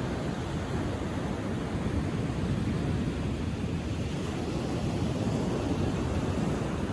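Atlantic surf washing onto a sandy beach: a steady low rumble and hiss with no single breaker standing out.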